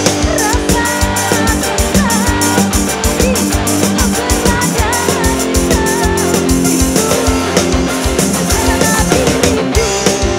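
Live dangdut band music: electric guitar and drums over a steady beat, with a wavering lead melody on top.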